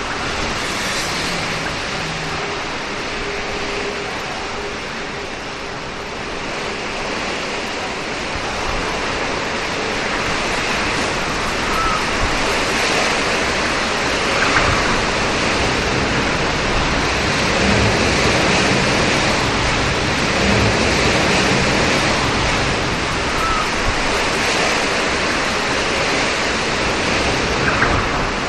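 Steady rain falling, an even hiss of water, with a few brief bird chirps over it.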